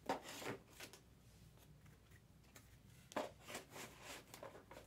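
Trading cards being handled and slid against one another, in two short bouts of rustling: one at the start and another about three seconds in.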